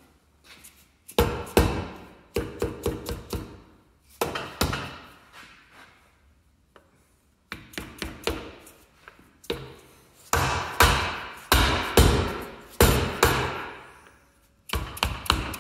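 Mallet tapping an ARB locker differential carrier into a Dana 30 axle housing: clusters of quick, sharp knocks with a short pause in the middle, seating the carrier bearings so the gear backlash can be checked.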